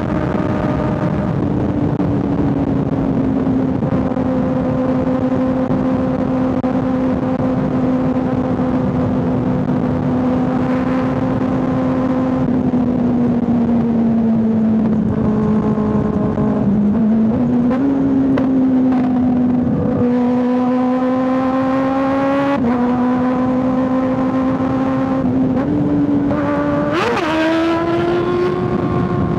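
Kawasaki ZX-6R 636 inline-four engine running at steady high revs at cruising speed, heard from on the bike with wind rush. In the second half its pitch dips and then steps up and down a few times, with a short rise in revs near the end.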